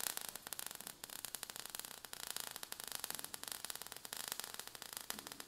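Faint crackling static: a steady hiss peppered with dense, irregular tiny clicks.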